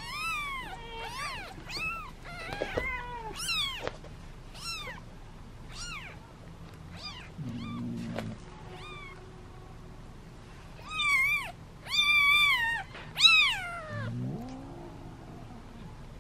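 A litter of newborn kittens mewing hungrily: many short, high, falling cries, loudest and most frequent in a cluster of four a few seconds before the end. Twice a lower, longer call sounds under them.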